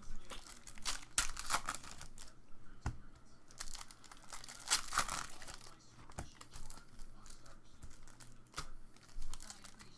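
Crinkling and tearing of foil trading-card pack wrappers being ripped open by hand, in irregular bursts of crackling.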